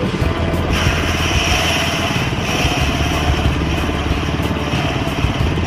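Small gasoline engine running steadily, driving a rice thresher's spinning drum. About a second in, a rushing hiss comes up as a bundle of rice stalks is held against the drum and the grain is stripped off, easing after two or three seconds.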